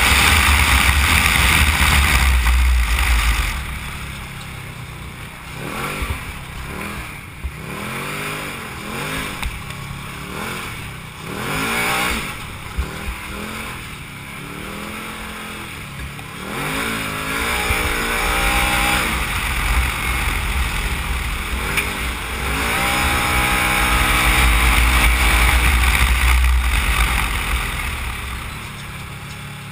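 Can-Am Maverick side-by-side's engine being driven hard on dirt. It runs at high revs with a heavy low rumble at the start and again from about 23 to 27 seconds in. In between, the revs rise and fall over and over as the throttle is worked through turns.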